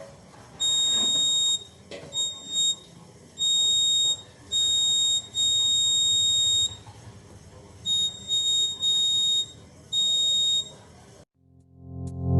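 Buzzer of a homemade laser security alarm giving a high, steady electronic tone in about ten irregular bursts, some brief blips and some over a second long, the alarm going off while the laser beam is being interrupted.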